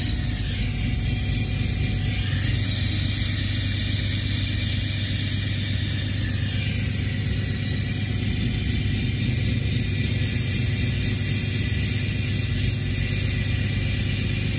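An engine idling steadily: a low, even drone that holds at one pitch throughout.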